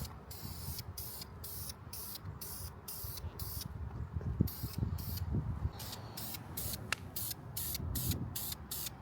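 Aerosol spray can of primer hissing in short, repeated bursts, about two a second, with a low rumble underneath.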